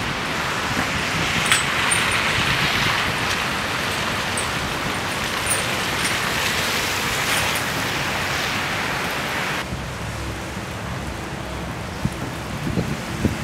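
Snowstorm street ambience: cars driving over a slushy road with a steady hiss of wet tyres, swelling as vehicles pass. About ten seconds in it changes to a quieter, lower outdoor ambience with a few soft knocks near the end.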